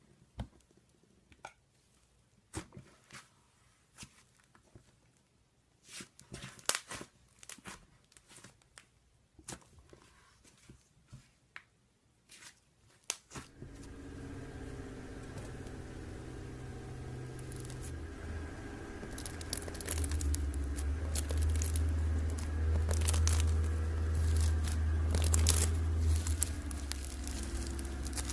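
Slime being played with by hand, making scattered sticky crackles, pops and tearing sounds. From about halfway a steady low hum comes in beneath the crackles and grows louder.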